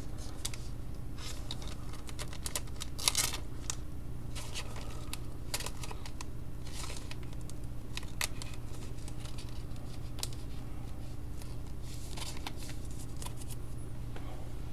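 Trading cards being handled at a table: scattered light clicks and rustles of cards and plastic card holders being fitted and set down, one sharper click about three seconds in, over a steady low electrical hum.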